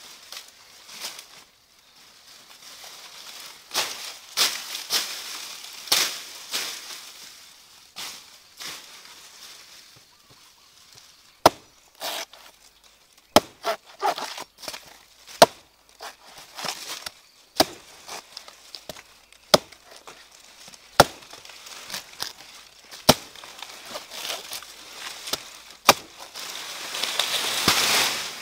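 Machete chopping into a green banana stem: about ten sharp strikes, one to two seconds apart, after a stretch of dry banana leaves rustling and crackling. Near the end, a long rising rustle of dry leaves as the cut stem comes down through the litter.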